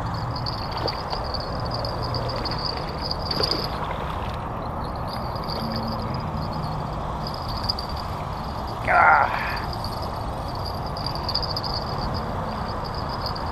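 Steady rush of a fast, flooded river, with one short, loud animal call about nine seconds in.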